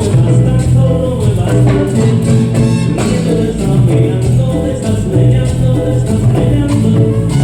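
Latin dance-band music with a steady beat and a prominent bass line.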